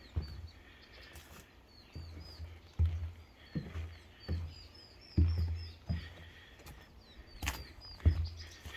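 Footsteps walking on a forest path, a dull thud about every three quarters of a second. Behind them a bird chirps in quick, repeated short high notes.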